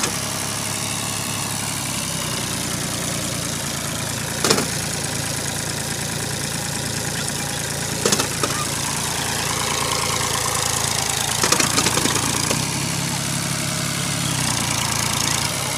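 Fiat 480 Special tractor's three-cylinder diesel engine running steadily, its note shifting slightly near the end, with a few short sharp knocks over it.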